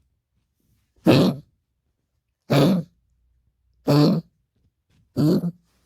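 A dog's honking, goose-like cough: four harsh honks about one and a half seconds apart.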